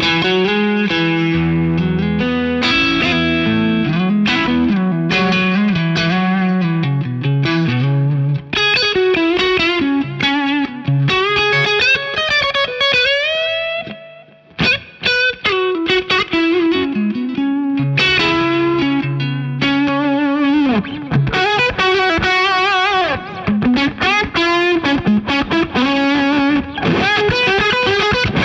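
James Tyler Studio Elite HD electric guitar played through effects: chords for the first several seconds, then single-note lead lines with bent notes, a brief pause about halfway, and more fast lead phrases after it.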